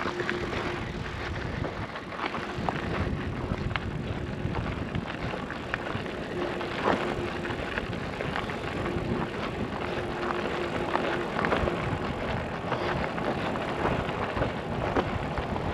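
Bicycle rolling along a gravel road: steady tyre noise with many small crackles from the stones, and a faint steady hum that comes and goes.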